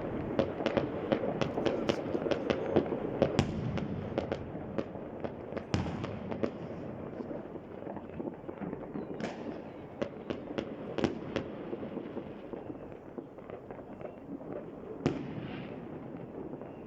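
New Year fireworks going off all around: a continuous crackle of many overlapping bangs and pops, with a few louder single bangs standing out now and then.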